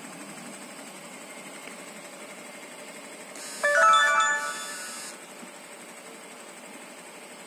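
A short electronic jingle of several quick pitched tones, loud and lasting about a second and a half, starts about halfway through over a steady faint background hum.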